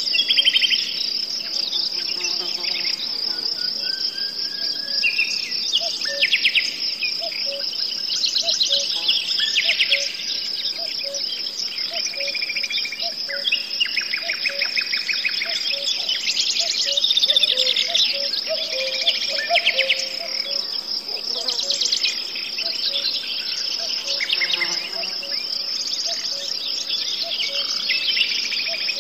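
Insects trilling steadily at a high pitch, cricket-like, with birds calling and chirping over them in short, quickly repeated phrases throughout.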